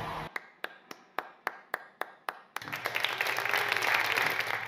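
One person clapping about nine times in a steady rhythm, followed by a crowd breaking into applause that swells and holds.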